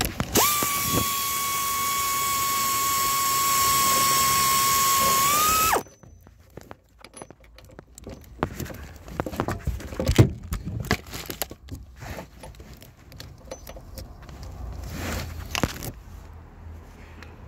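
Power ratchet spinning a nut on the rear shock absorber's top mount, a steady whine that rises slightly just before it stops about six seconds in. Metal clinks and knocks from handling the tool and parts follow.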